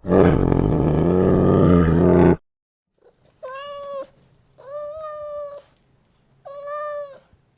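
A loud, low roar cuts off abruptly about two and a half seconds in, followed by a domestic cat meowing three times.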